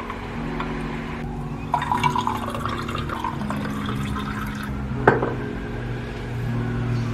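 Water poured from a glass bottle into a glass mug, the filling sound rising in pitch as the mug fills. There are a few glassy clinks near two seconds in and a sharp clink a little after five seconds.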